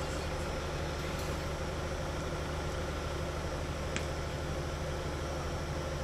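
Steady low hum, with a single sharp click about four seconds in.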